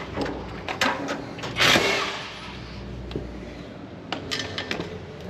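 Hand tools working bolts on a Dressta TD-8H dozer: scattered metal clicks and clanks of a wrench on fittings, the loudest a scraping clank a little under two seconds in, then a quick run of clicks about four seconds in, over a steady low hum.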